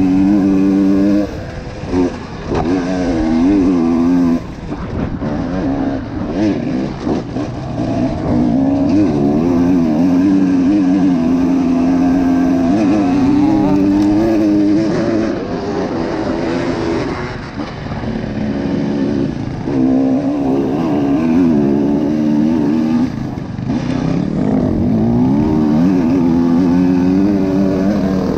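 Enduro dirt bike engine under load on a rough off-road track, revving up and down over and over as the throttle is opened and closed. The engine note drops back briefly a couple of times in the first few seconds and eases for a few seconds before picking up again.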